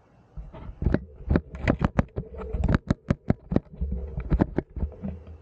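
Hands handling and tapping a bike-mounted 360 camera close to its microphone: a quick, irregular run of clicks and knocks with low rumbles of handling noise.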